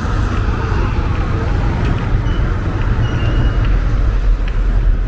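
Urban street ambience dominated by road traffic: a steady low rumble of passing cars, with a few brief high squeaks about two to three seconds in.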